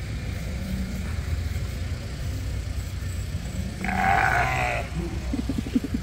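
A sheep bleats once, a wavering call about a second long, about four seconds in, over a steady low rumble.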